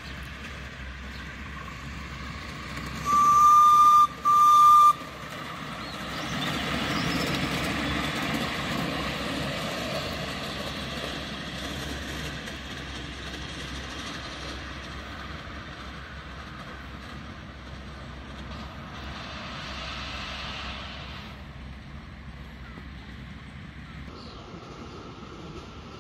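Two short blasts of a miniature live steam locomotive's whistle, a 5-inch-gauge 0-4-2, about three seconds in, with a brief break between them. Then the locomotive runs past on the track, its sound swelling and fading away as it heads off.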